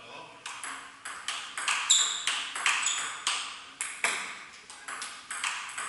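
Table tennis rally: the ball clicks sharply off the paddles and bounces on the table in a quick alternating rhythm, about two to three hits a second, each with a short echo.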